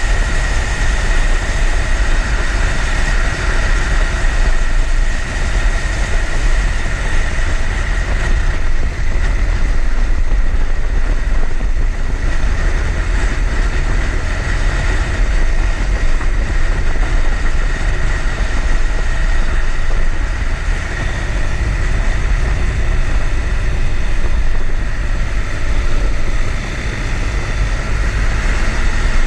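Motorcycle engine running steadily under way, with strong low wind rumble on the microphone.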